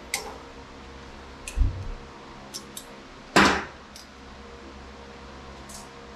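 Small metal clicks and clinks of a flathead screwdriver prying at a tight C-clip on a hydraulic handbrake's pivot. There is a dull knock about a second and a half in and a louder, sharper clack about three and a half seconds in.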